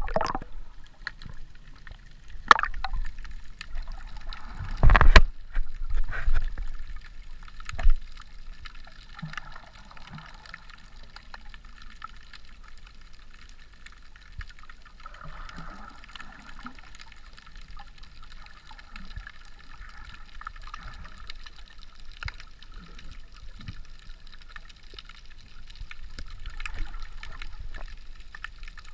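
Muffled underwater sound of a snorkeler swimming with the camera: water sloshing and gurgling, with sharp knocks about two and a half and five seconds in. After that it settles to a faint steady wash with soft bubbling.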